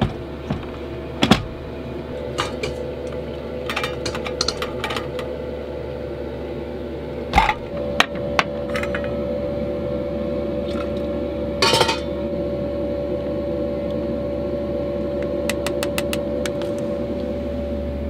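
Scattered metal clinks and knocks of an Instant Pot's lid and a stainless steamer pan with a wire sling handle being handled and set down on a wooden counter, over a steady hum.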